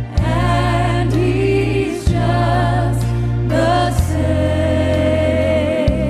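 A woman singing a gospel worship song, with vibrato on held notes, over instrumental accompaniment. A deep sustained low note underneath changes with the chord about every two seconds.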